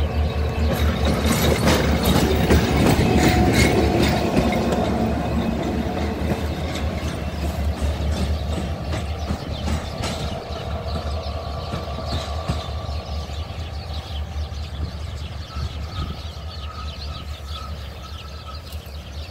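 Diesel locomotive running light on a shunting move: its engine drones steadily while the wheels clatter over rail joints. It is loudest a few seconds in as it passes, then fades slowly as it moves away, with a faint high whine in the later part.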